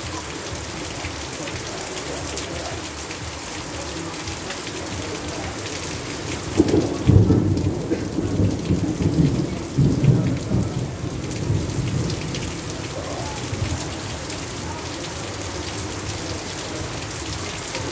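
Heavy rain pouring steadily. About six seconds in, a roll of thunder rumbles low and uneven for several seconds before fading back under the rain.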